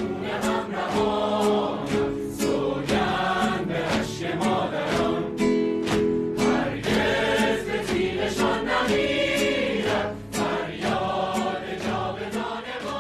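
Music with a choir singing over plucked strings and regular drum strikes.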